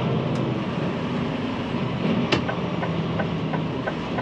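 A DAF XD 8x2 truck's 11-litre PACCAR engine running steadily at low speed, heard from inside the cab. There is a sharp click a little after two seconds in, then a regular light ticking, about three a second.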